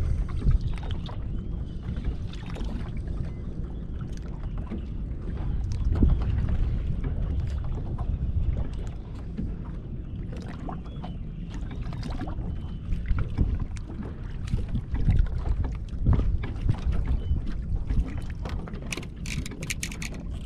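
Wind rumbling on the microphone and waves lapping against the hull of a bass boat rocking on choppy water, swelling and easing unevenly, with a few light clicks near the end.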